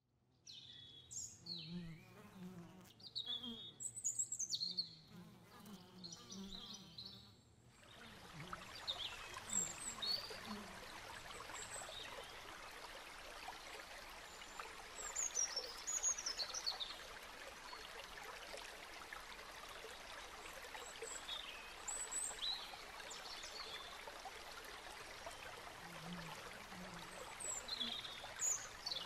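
Small birds chirping and singing in short scattered calls, over a steady rushing hiss of flowing water that comes in abruptly about eight seconds in.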